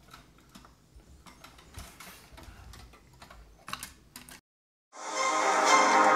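Faint scattered light clicks and taps, then about five seconds in music fades up, with stringed instruments.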